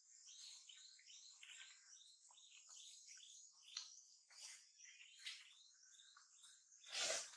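Faint background birdsong: many short chirps overlapping one another over a steady high insect drone. A brief, louder rustling noise near the end.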